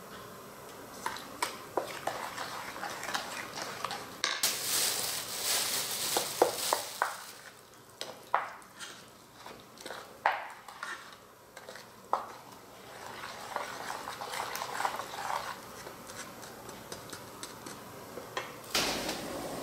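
A spoon stirring and scraping thick, wet chili seasoning paste in a stainless steel bowl, with clicks of the spoon against the metal, busiest a few seconds in.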